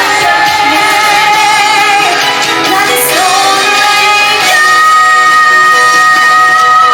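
Live musical-theatre number: singing over a band, with a long sustained note with vibrato from about halfway through.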